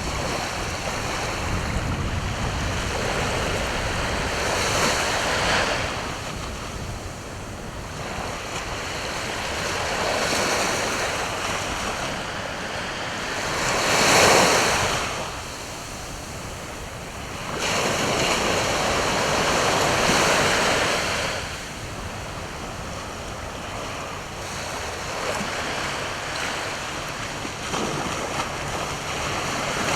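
Sea waves breaking and washing up the shore, a steady surf that swells and ebbs every few seconds, loudest about halfway through. Wind rumbles on the microphone during the first few seconds.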